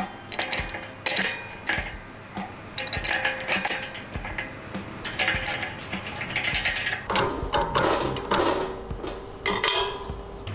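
Stainless steel rotor blades of a Dalton Power Mill grinder clinking and scraping against each other and the shaft as they are handled by hand, in irregular metallic clicks.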